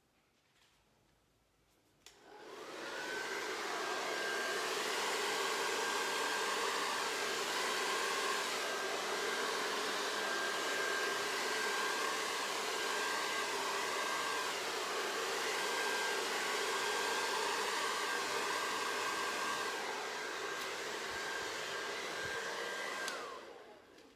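Hair dryer blowing fluid acrylic paint across a canvas: switched on with a click about two seconds in, its whine rising as it gets up to speed, then running steadily until its pitch falls away as it is switched off near the end.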